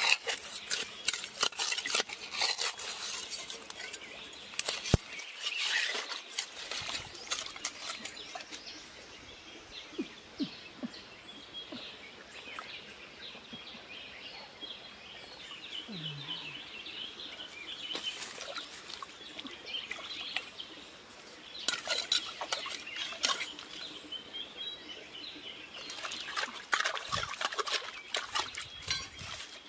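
Hands digging and groping in a muddy, water-filled hole: irregular spells of wet squelching, splashing and scraping of mud and roots, quieter for a while in the middle and busy again near the end.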